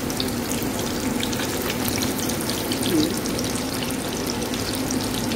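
Breadcrumb-coated fish cutlets deep-frying in oil on medium heat: a steady sizzle full of fine crackling, with a steady low hum underneath.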